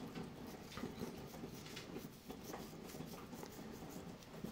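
Faint light rustling and scattered soft ticks of dried herbs being sprinkled by hand onto mayonnaise-spread toast slices on a wooden cutting board.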